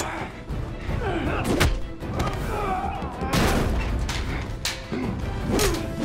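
Movie fight sound effects: several hard punch and body impacts, with grunts from the fighters, over a tense music score.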